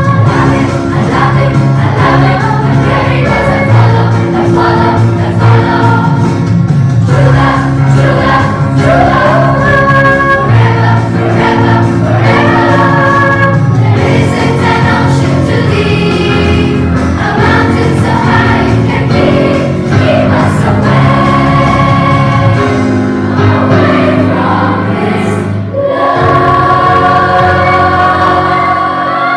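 A mixed choir of young voices singing in parts, recorded separately and mixed together as a virtual choir. The singing moves through changing notes, then settles on a long held note near the end that begins to fade.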